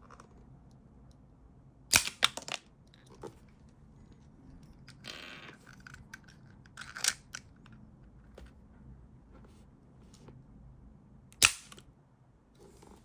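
Sharp plastic clicks and snaps from a 3D-printed pocket launcher toy being worked: a quick run of clicks about two seconds in, a short scrape around five seconds, more clicks near seven seconds, and one loud snap near the end.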